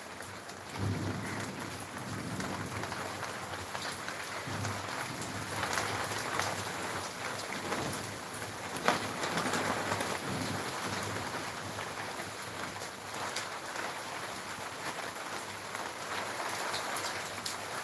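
Steady monsoon rain falling and pattering on surfaces, with some low rumbling in the first few seconds and one sharp drop-like click about nine seconds in.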